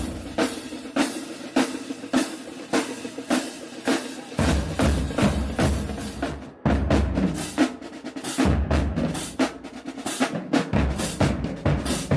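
Marching band drumline playing a cadence: rapid snare drum strokes with bass drums that drop out for a few seconds and come back in about four seconds in.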